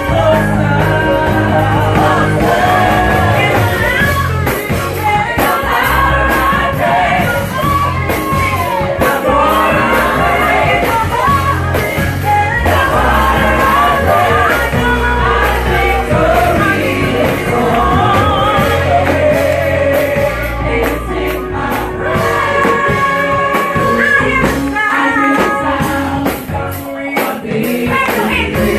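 Gospel praise-and-worship music: singers over a full band with bass and drums.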